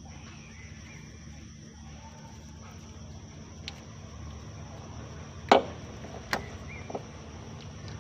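A few sharp metallic clicks and knocks from hand tools working on a forklift diesel engine's fuel feed pump as it is being removed, the loudest about five and a half seconds in and another just under a second later, over a steady low hum.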